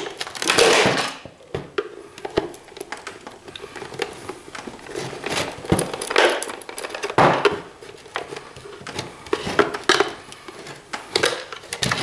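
Screwdriver prying and scraping inside a CPAP machine's hard plastic housing: irregular clicks, knocks and short scrapes as a part is worked loose.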